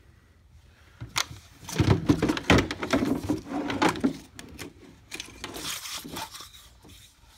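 Hard plastic being handled: a run of knocks and clattering for a few seconds, then lighter rubbing and clicks as the chainsaw and its plastic parts are moved about.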